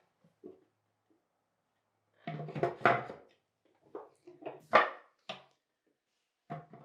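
Wooden knocks and clatter from housework, in three bursts a second or two apart.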